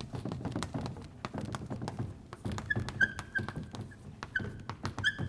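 Chalk writing on a blackboard: quick taps and scratches as the letters go on. From about halfway, several short high squeaks of the chalk.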